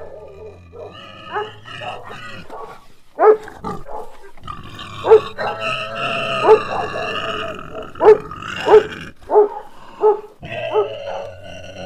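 Dog barking and growling: a run of short, loud barks, roughly one a second from about three seconds in, with a steadier growl-like sound between them.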